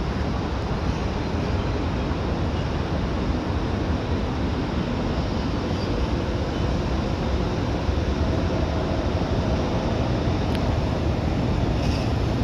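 Steady low rumble of city traffic and wind, with a faint hum coming in about eight seconds in.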